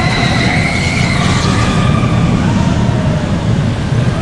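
Steady, loud rumble of a moving vehicle, with a thin high squeal through the first second or two.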